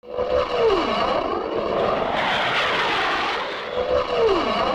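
Cartoon sound effect of a droning airplane engine, with a whistle that falls in pitch near the start and again near the end.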